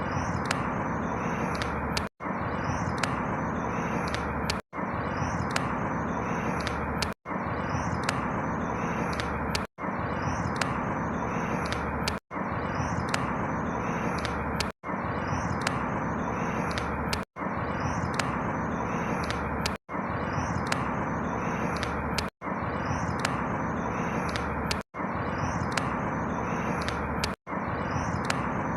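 Steady rushing outdoor ambience with faint high chirps, played as a short loop: it cuts out for an instant about every two and a half seconds and starts the same stretch again.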